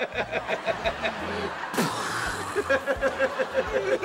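Two men laughing hard in quick, rhythmic 'ha-ha' pulses, broken by a brief hissing burst about two seconds in.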